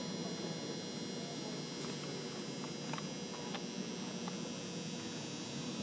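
Steady background hum of a large indoor arena with a low murmur of spectators, and a few faint clicks about halfway through.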